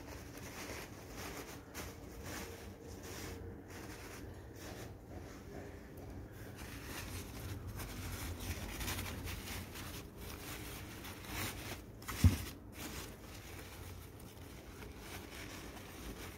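Crumpled paper packing rustling and crinkling as a hand rummages through it inside a cardboard box, with a single sharp knock about twelve seconds in.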